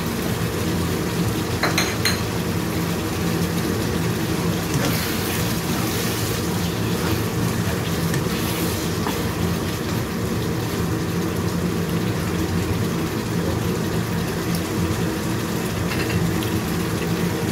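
Thick curry of goat meat simmering and bubbling in a wok, with a steady low hum underneath. A couple of sharp clicks come about two seconds in, and in the middle a spatula stirs and scrapes through the sauce against the wok.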